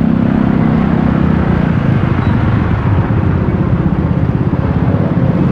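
Honda Click automatic scooter on the move: a steady low engine hum under a constant rush of wind and road noise. The engine hum drops away about a second in, leaving mostly the rushing noise.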